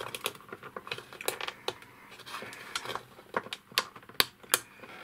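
Irregular small plastic clicks and taps as a snap-in 45 rpm adapter is worked loose by hand from the centre of a record player's turntable platter. The sharpest clicks come in the second half.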